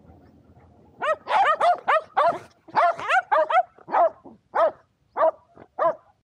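Shetland sheepdog barking: a quick run of about a dozen loud, high barks starting about a second in, coming in clusters and thinning out toward the end. A faint rustle of movement on dry grass comes before the barking.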